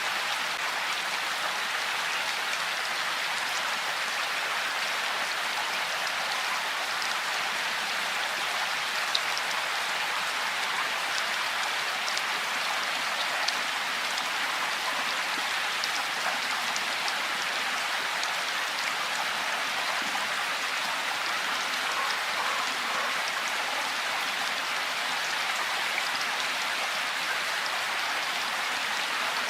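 Steady rain falling: a dense, even hiss of rain with scattered sharper drop ticks.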